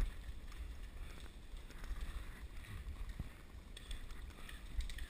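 Low wind rumble on the microphone, with faint scattered rustles and ticks.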